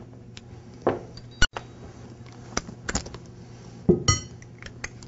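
Small steel hardware clinking against metal: a series of sharp, separate clinks, the loudest about one and a half seconds in and another near the end ringing briefly.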